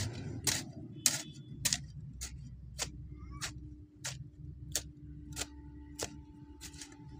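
A regular sharp ticking, a little under two clicks a second, over a low rumble, with a faint steady hum setting in partway through.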